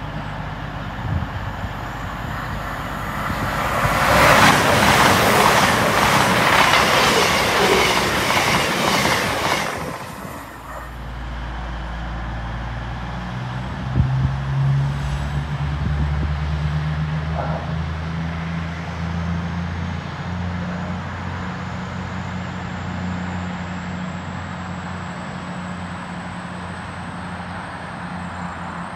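Diesel passenger train at a station: a loud rush of wheels on rails lasting about six seconds, then a steady low diesel engine hum.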